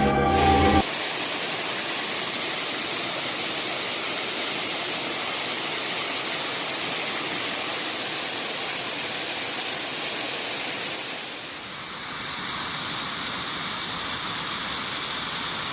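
Waterfall: a steady rush of falling water with no tone in it, turning a little quieter and duller about twelve seconds in.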